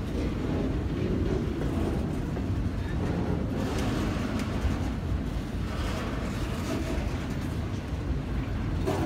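Freight train of flatcars loaded with trailers rolling past close by: a steady rumble and rattle of steel wheels on the rails, with a few faint clanks.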